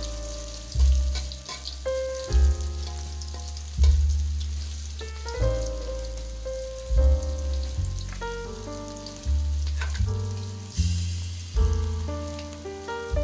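Tempe strips sizzling as they fry in oil in a wok, a steady hiss, under background music with a bass note every second or two.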